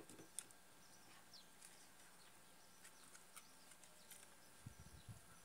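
Near silence with faint handling noise from a small carton of sweetened condensed milk being opened: a couple of soft clicks at the start, then low muffled knocks in the last second as the carton is squeezed.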